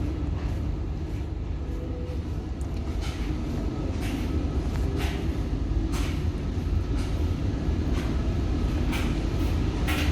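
Steady low rumble of a ship's machinery, with footsteps about once a second along a corridor floor.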